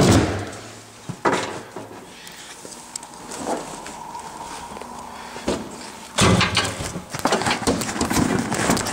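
Hard splint boards being slid and knocked back into an ambulance's storage compartment. It is a run of clattering knocks, with a sharp one at the start and another about a second in, a few light knocks in a quieter middle, and busier rattling from about six seconds in.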